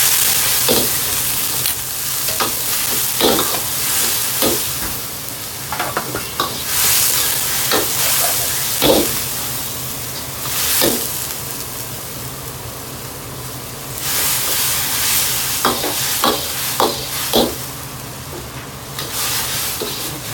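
Cabbage, pork and vegetables sizzling in a wok, with a metal ladle scraping and knocking against the wok as they are stir-fried. The sizzle swells and fades several times, and the ladle knocks come at an irregular pace.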